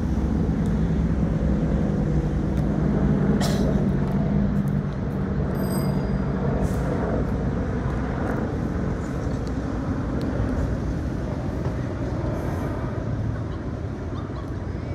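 Motor vehicle engine running with a steady low hum that fades after about five seconds, over road traffic noise. A brief high-pitched tone sounds about five and a half seconds in.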